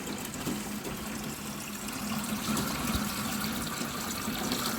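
Water running steadily from a tap, a constant hiss with no break.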